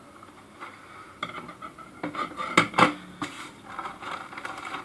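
Plastic courier mailer bag being handled and pulled open on a table, crinkling, with a few sharp clicks and knocks; the loudest comes about two and a half seconds in.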